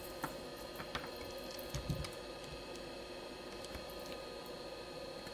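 Low, steady hum of workbench electrical equipment, with a few soft clicks and taps in the first two seconds.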